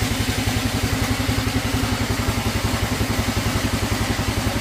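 Small engine idling steadily with an even, rapid low throb.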